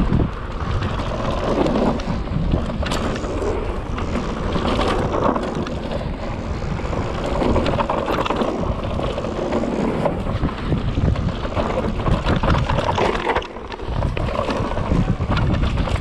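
Mountain bike descending a dirt trail: wind rushing over the microphone, with tyre noise on dirt and frequent clicks and clatter from the bike over bumps.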